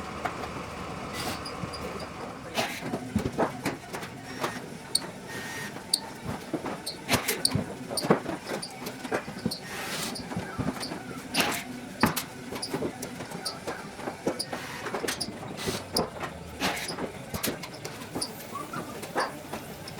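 Blind rivets being set in the aircraft's aluminium wing skin with a rivet puller: a string of sharp snaps and clicks at irregular intervals, at times several a second, over a steady background hum.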